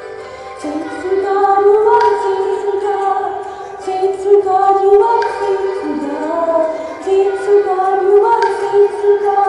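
A woman singing a slow worship song, holding long notes that slide from one pitch to the next.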